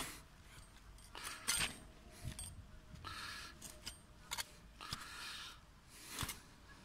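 Metal hand trowel digging into stony garden soil: a string of irregular scraping, crunching strokes as the blade cuts and lifts out earth and grit.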